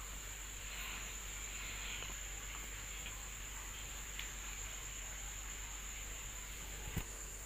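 Faint, steady high-pitched trilling of crickets, with one sharp click near the end.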